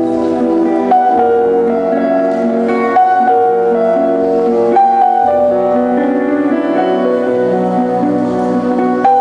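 Background music: a slow instrumental led by piano-like keyboard, with held chords that change every second or two.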